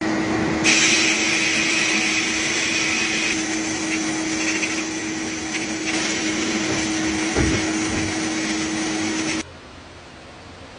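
A power tool running steadily, with a constant hum under a strong hiss, cutting off abruptly about nine seconds in.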